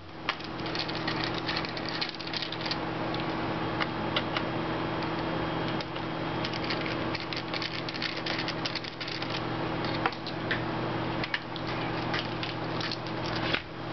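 Scattered small metallic clicks and scrapes of a screwdriver backing screws out of a PowerBook G4's aluminium case, with screws dropped into a plastic tray near the end, over a steady background hum.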